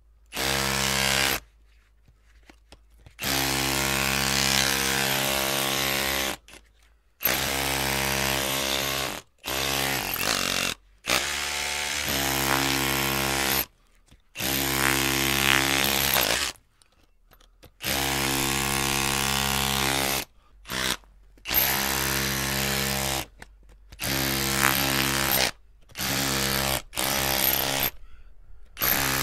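Electric drill running in repeated bursts of one to three seconds with a steady whine, stopping and starting again about a dozen times with short silent gaps between.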